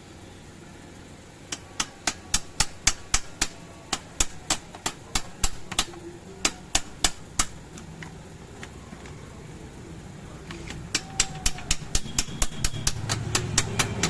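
A run of sharp taps, about three a second, stops for a few seconds and then starts again, over a low steady hum.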